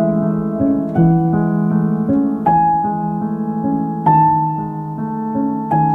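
Slow, relaxing piano music: sustained chords with new notes struck every second or two.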